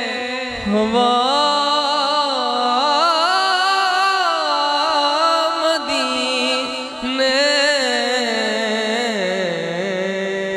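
A male naat singer's voice, sung into a microphone, holding long ornamented phrases that bend up and down in pitch. There are brief breaks for breath about half a second in and again around seven seconds.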